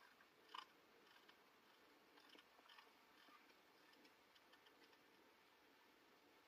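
Near silence on a phone line, with a few faint clicks.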